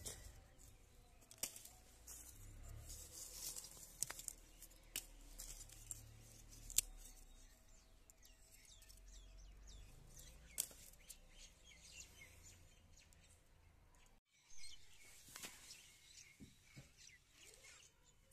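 Quiet outdoor ambience: small birds chirping, more often in the second half, with a few sharp clicks and knocks as lumps of charcoal are handled.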